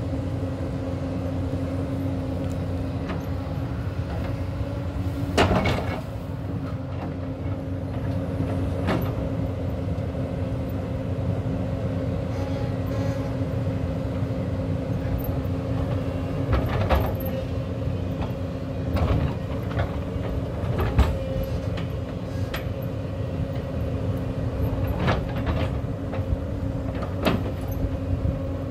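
Hyundai crawler excavator's diesel engine and hydraulics running steadily under load as the bucket digs into a hillside. Short knocks and clunks come every few seconds, the sharpest about five seconds in and about twenty-one seconds in.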